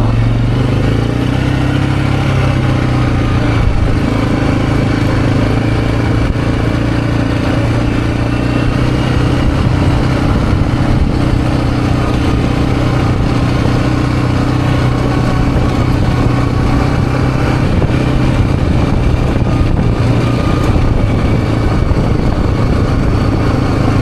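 A motor vehicle's engine running steadily at an even speed, with a constant low hum that barely changes pitch.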